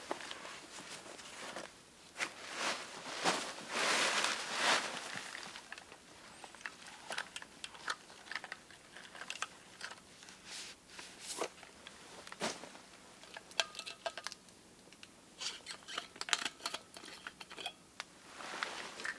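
Close handling noise: clothing, bags and gear rustling and crunching as a person takes off a pack and sits down on a raised log bed, loudest about two to five seconds in. After that come scattered small clicks and clinks from handling a metal thermos.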